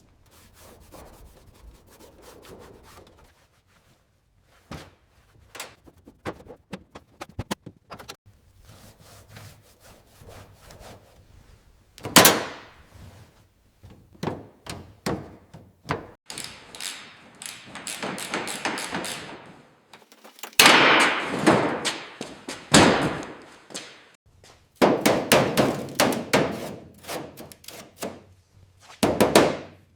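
Hand tools working on a 1/18 scale model car: scattered taps and clicks, with several stretches of rubbing a few seconds long, the loudest about two-thirds of the way through.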